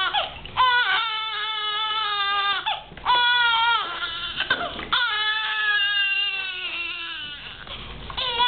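Newborn baby crying: three long wails of about two seconds each, with short gasps for breath between them.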